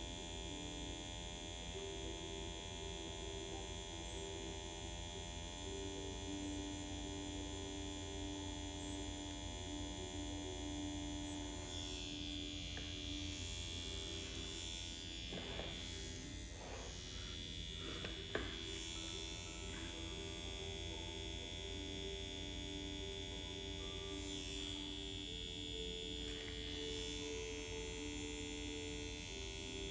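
Steady electric buzz of a permanent-makeup machine pen running as nano brow strokes are worked into the skin, over a low hum.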